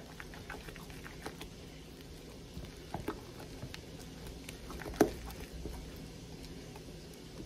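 A utensil stirring a thick Parmesan-and-egg paste in a glass bowl, with soft scattered clicks against the glass and one louder knock about five seconds in.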